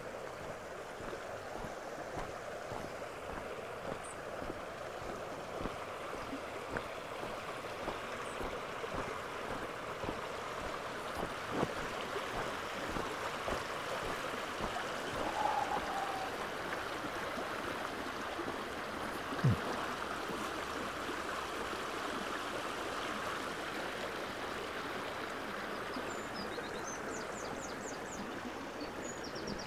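Small shallow stream running over stones with a steady babble. A few short, high bird chirps come in near the end.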